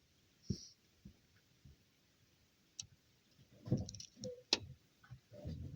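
A few scattered clicks and knocks from hand tools at work on the engine, with a short cluster of knocks and a sharp click about four seconds in.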